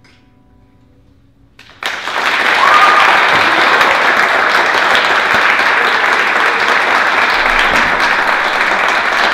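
The last notes of a piano and cello duo fade out, then an audience bursts into applause a little under two seconds in and keeps clapping steadily.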